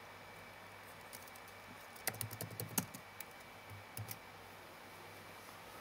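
A quick run of keystrokes on a laptop keyboard about two seconds in, followed by a couple of softer taps, over faint room tone.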